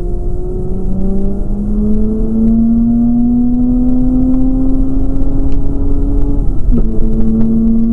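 Mazda RX-8's twin-rotor Wankel rotary engine, heard from inside the cabin, pulling under acceleration with its pitch climbing steadily. About six and a half seconds in, the note breaks briefly and comes back lower as the driver shifts up a gear.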